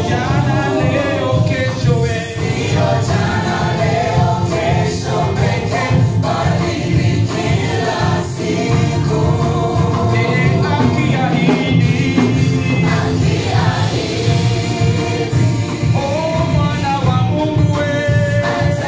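Gospel worship song: a choir singing over instrumental backing, loud and continuous.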